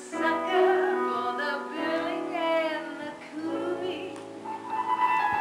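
A woman singing a show tune from a stage musical, over sustained instrumental accompaniment.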